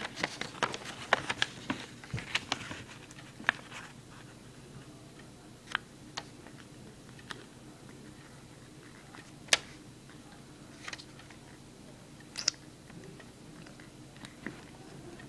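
Paper being folded and creased by hand: a quick run of sharp crinkles and taps in the first few seconds, then single crisp clicks every second or two.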